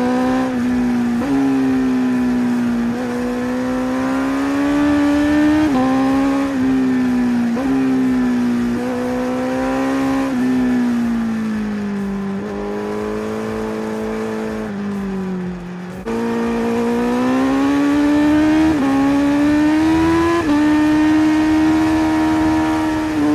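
Honda CBR1000RR-R SP's inline-four engine with its Akrapovič exhaust running hard at high revs. The pitch climbs and then drops sharply again and again as it shifts through the gears, with a stretch of falling revs about two-thirds of the way through.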